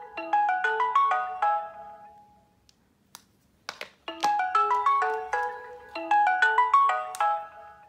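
Mobile phone ringtone: a quick melody of bright struck notes, played as two phrases, then a pause of about two seconds with a couple of faint clicks, then the same melody again.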